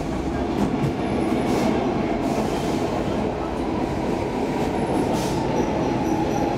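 Stockholm Metro C14 train running through a tunnel, heard from inside the car: a steady, even rumble of wheels on the rails and car noise.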